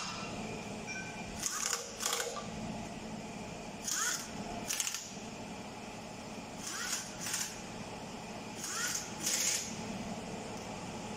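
Short bursts of compressed air from a hose-fed pneumatic tool, hissing in pairs about half a second apart, four times over, against a steady low shop hum.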